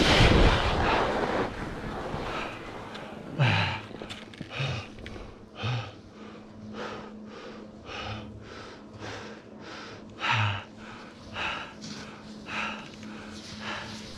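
Rush of wind and skis scraping on snow for the first second or so, until the skier stops; then the skier's heavy breathing close to the microphone, about one breath a second, some with a low sigh.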